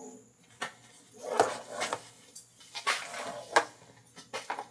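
Hands moving the wiring harness and plastic connectors inside a Jeep JK door: a string of light, irregular clicks and knocks with some rustling.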